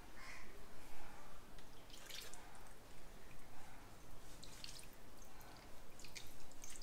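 Water trickling and dripping from a plastic bottle onto raw chicken pieces on a steel plate, rinsing the meat.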